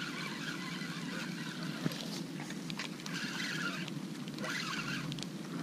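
Steady hiss of rain falling on the lake, with the soft whir of a spinning reel being cranked slowly and a single faint click about two seconds in.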